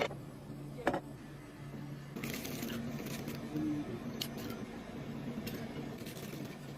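A person eating close to the microphone, with wet mouth smacks and chewing. There are two sharp clicks near the start and about a second in, a short crackly stretch a couple of seconds in, and scattered ticks after that.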